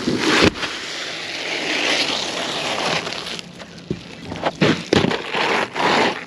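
Asphalt roofing shingles being handled on a roof: a knock about half a second in, then a long rustling scrape as the shingles are shuffled and laid out on the underlayment. Several shorter scrapes follow near the end as a shingle is set at the edge.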